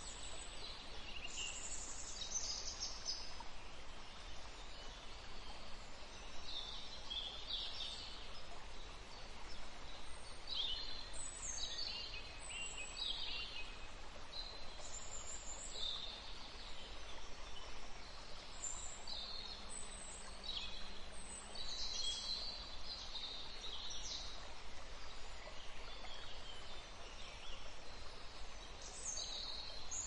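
Small birds chirping in the background: short high-pitched calls, many of them falling in pitch, come every second or two over a steady outdoor hiss.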